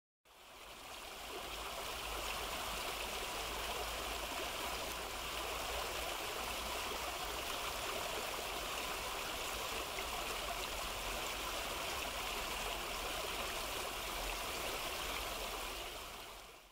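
Fountain water jets splashing down into a basin: a steady rush of falling water that fades in at the start and fades out at the end.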